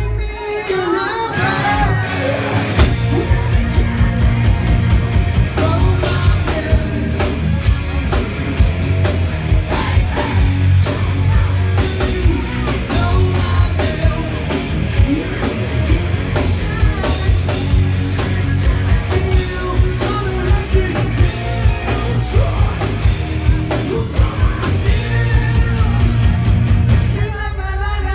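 Live hard rock band playing loud: a singer belting and shouting over electric guitars, keyboards and a steady drumbeat.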